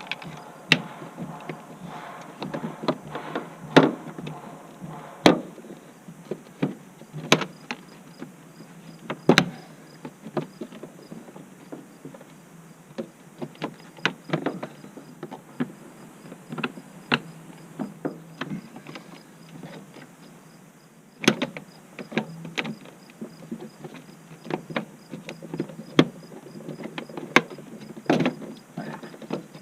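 Irregular sharp clicks and knocks of plastic engine-bay trim being handled and fitted back, its tabs snapping into place, with a faint low hum behind.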